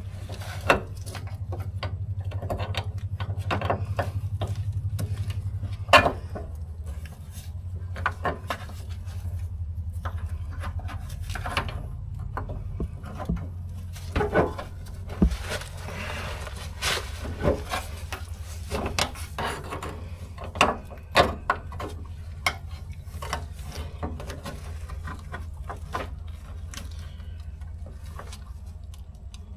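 Hand work on a car's fuel tank and fittings: scattered knocks, clicks and scraping of metal parts and tools being handled, over a steady low hum.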